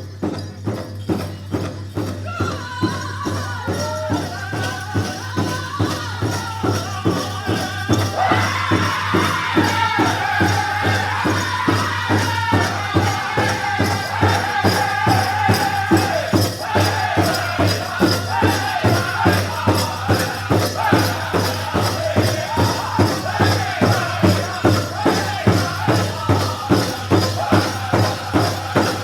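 Powwow drum group playing a grass dance song: several singers strike one large drum in a steady beat of about two strokes a second and sing in high voices. A single lead voice comes in about two seconds in, and the rest of the group joins about eight seconds in.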